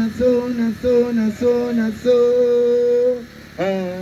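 A man singing live, short repeated melodic notes, then one long held note, a brief break, and a new phrase starting near the end.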